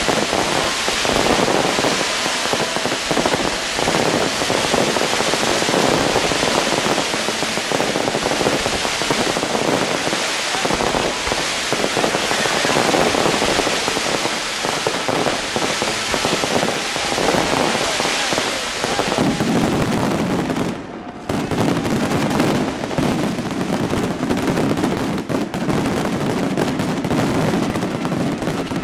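Fireworks going off in a dense, continuous barrage of rapid crackles and bangs, with a brief drop about twenty-one seconds in.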